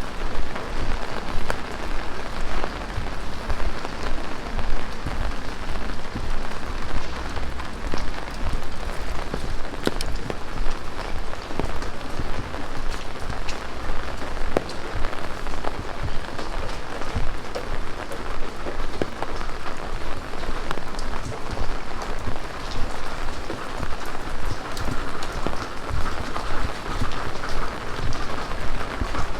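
Heavy rain falling steadily, a dense hiss of rain with the patter and ticks of countless individual drops striking surfaces close by.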